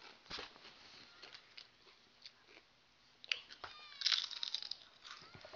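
Someone biting and chewing crunchy chips, a series of short crackling crunches with a louder burst of crunching about three to four and a half seconds in.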